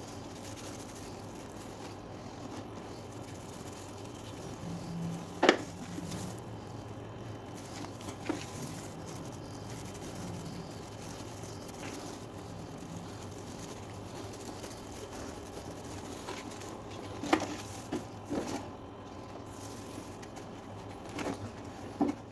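Steady background hiss with a few sharp light taps or clicks from hand work, the loudest about five seconds in and a cluster of them near the end.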